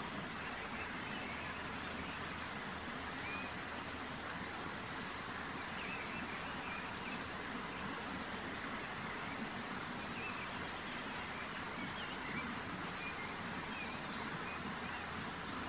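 Steady outdoor background noise with a few faint, brief bird chirps scattered through it; no bleating.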